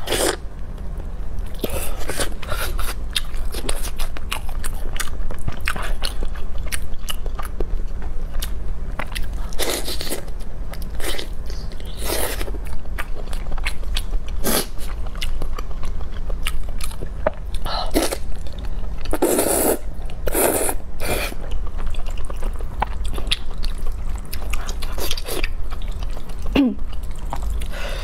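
Close-miked eating: a person chewing and biting with many sharp crunchy clicks and wet mouth noises, a few longer noisy stretches mixed in.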